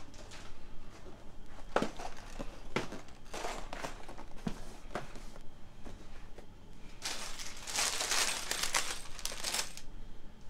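Cardboard LEGO set boxes being handled and set down on a table: scattered knocks and scrapes, then a couple of seconds of crinkling, rustling handling noise starting about seven seconds in.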